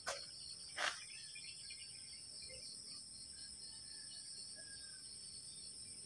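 Insects chirring steadily in two high-pitched tones, with faint bird calls. Two short knocks in the first second.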